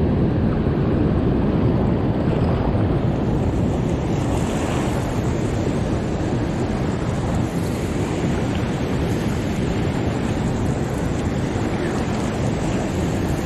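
Fast water rushing steadily down a lake spillway, with some wind noise on the microphone.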